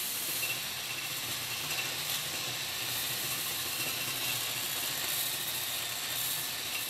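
Steel barrel of an old hand tyre pump spinning in a power drill while being abraded, first with sandpaper held against it and then with an angle grinder's sanding pad: a steady hissing grind of abrasive on metal over the motors' hum.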